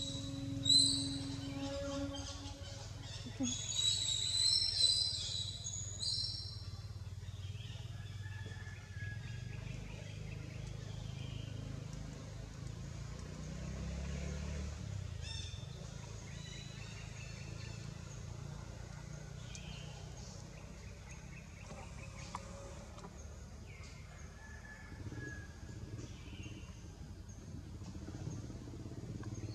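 Outdoor forest ambience: a low steady rumble with faint, scattered bird chirps. In the first few seconds a run of bright, high-pitched calls stands out above it.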